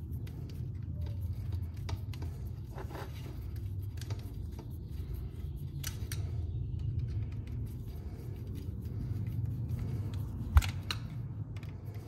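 Small screwdriver tightening the screws of a metal strain-relief clamp on the back of a Deutsch HD connector, giving light metallic clicks and scrapes, with one sharper click about ten and a half seconds in. A steady low rumble runs underneath.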